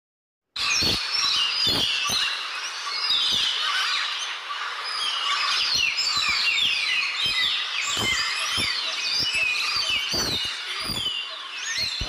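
A dense chorus of many birds chirping and whistling in quick, overlapping calls, starting about half a second in.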